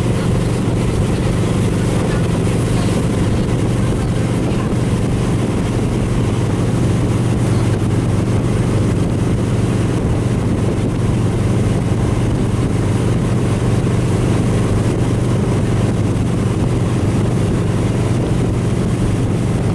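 Motorboat engine running at a steady towing speed, heard from on board, as a constant low drone. Over it runs an even rush of wake water and wind.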